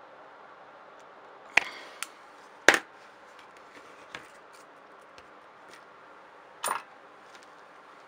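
Small metal tools handled on a workbench during soldering work: a handful of sharp clicks and taps, the loudest about one and a half and two and a half seconds in, over a steady faint hiss.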